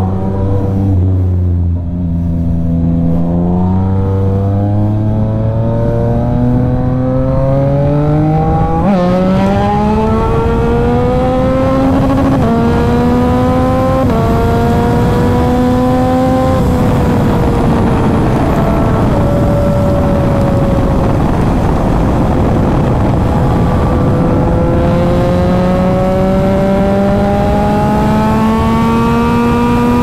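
Yamaha MT-09's inline-three engine running hard at highway speed, its note rising steadily for the first dozen seconds with brief dips in pitch at gear changes, then holding and sagging a little before rising again near the end, over steady wind rush.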